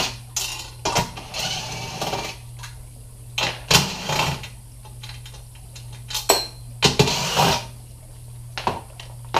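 A power tool spinning off the 10 mm nuts from the underside of a truck jump seat in about four short bursts, with clicks and clinks of metal between them.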